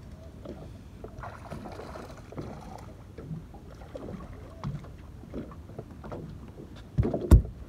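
Wind and water noise around a small fishing boat with scattered small knocks of handling, then a heavy thump about seven seconds in as a hooked flathead is swung aboard and lands on the boat.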